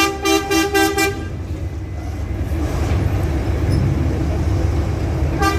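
A two-tone bus horn sounding in rapid pulses, about three or four a second, for the first second or so. Then the Hino bus's diesel engine runs at low speed as it crosses the steel ferry ramp. The pulsing horn starts again near the end.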